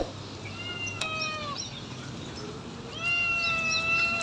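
Puppy whining: a short call about half a second in, then a longer, steady, high whine from about three seconds in.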